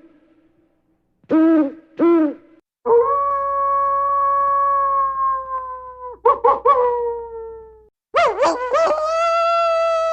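An owl hoots twice, then a wolf howls: one long, level howl that sinks slightly at its end, three quick wavering notes, and a second long howl starting about eight seconds in.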